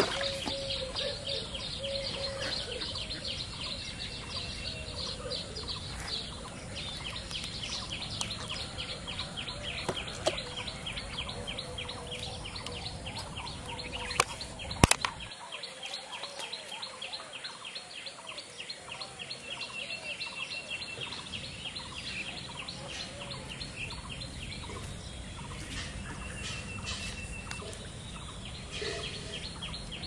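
A long run of rapid, evenly repeated high chirps from a calling animal. Two sharp clicks or knocks come about halfway through.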